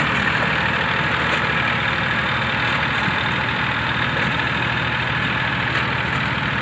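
Massey Ferguson 1035 DI tractor's three-cylinder diesel engine running steadily, at an even level.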